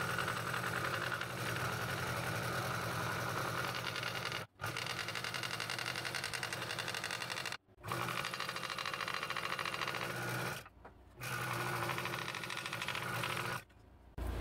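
Scroll saw running, its reciprocating blade cutting slowly through a long piece of hardwood with a steady buzzing chatter. The sound breaks off abruptly for a moment four times.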